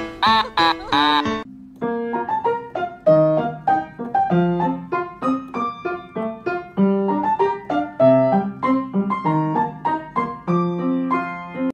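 Background music: a short stretch of different music, then from about a second and a half in, a piano playing a slow melody note by note.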